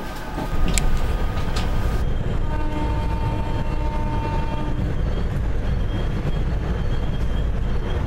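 SEPTA electric commuter train running on the rails. For the first two seconds a couple of sharp wheel clicks come over track joints. After that comes the steady low rumble of the train heard from inside a passenger car, with a faint steady whine.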